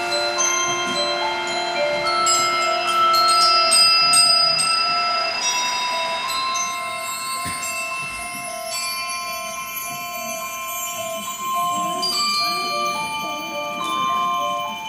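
Percussion ensemble playing a slow passage of long ringing notes on mallet keyboard instruments and bells, many overlapping tones sustained and fading, with high bell-like pitches above.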